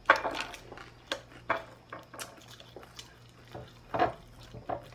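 Cutlery clinking and scraping against a plate during a meal, a string of separate short strikes, loudest at the start and about four seconds in.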